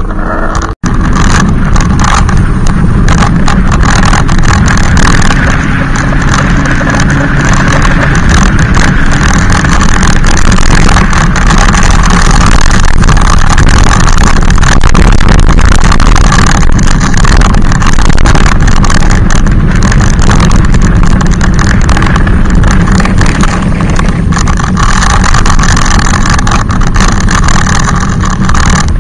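Loud, steady motor noise from an e-bike riding close behind, mixed with road and rush noise of riding at speed, with a brief dropout about a second in.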